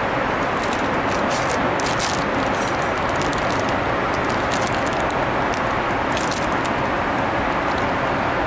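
Steady cabin noise of a Boeing 747-8i in flight, with a cellophane cookie bag crinkling in the hand in short bursts through most of the first seven seconds.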